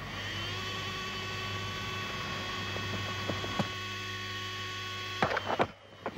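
A steady hum with several overtones that slides into pitch just after the start, holds, and cuts off about five and a half seconds in, over a constant mains hum. A few faint clicks come midway, and a couple of loud sharp knocks come just before the hum stops.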